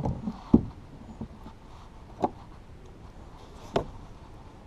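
Sharp knocks and thumps of gear being handled in a fishing kayak: the loudest about half a second in, then two more, roughly a second and a half apart.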